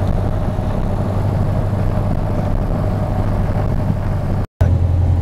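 Piper Arrow light aircraft's piston engine running steadily on the ground, a loud low drone heard inside the cabin, cut off by a brief dropout near the end.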